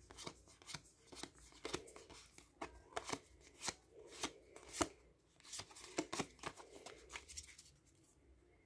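Yu-Gi-Oh trading cards being flicked one after another from a stack, soft quick card clicks and slides at about two a second, thinning out near the end.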